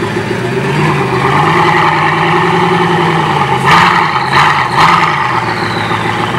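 Bugatti Vision GT's engine running under light throttle as the car tries to climb the truck's loading ramps. The engine note rises about a second in and holds. Three short revs come near the middle, followed by a falling whistle.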